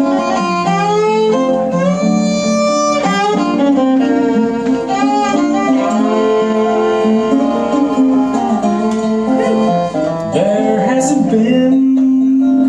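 Fiddle playing a sliding country melody over a 1930s National all-metal four-string tenor resonator guitar picking the accompaniment. This is the instrumental intro to the song, before any singing.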